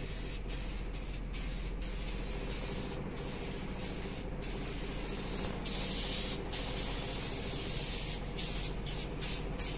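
Diton Premium aerosol spray paint can hissing as primer grey is sprayed on in passes, the hiss cut by about a dozen brief pauses, over a steady low hum.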